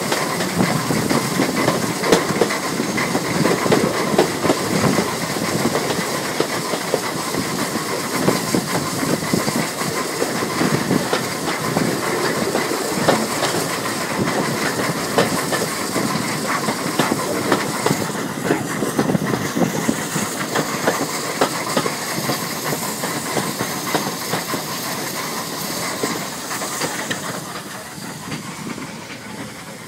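A steam-hauled train running, heard from an open carriage window behind a 3F steam locomotive: the wheels clatter over the rail joints under a steady hiss of steam. It grows quieter over the last few seconds.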